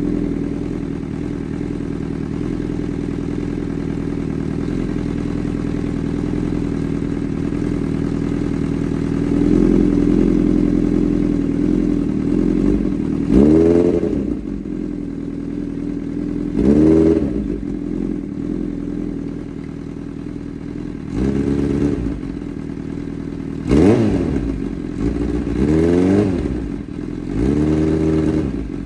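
Honda CB1000R's inline-four engine breathing through a Black Widow aftermarket exhaust, idling steadily and then blipped on the throttle. From about halfway come about seven short revs, each rising and dropping back quickly, bunched closer together near the end.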